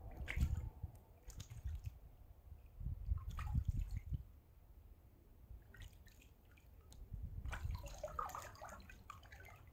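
Small splashes and drips of lake water at a rocky shoreline, busiest near the end, with low gusts of wind on the microphone.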